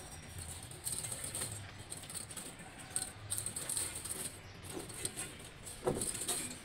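Coil of concertina razor wire jangling and rattling as it is handled and pulled out along a wall top, its metal loops clinking irregularly, with a sharper knock near the end.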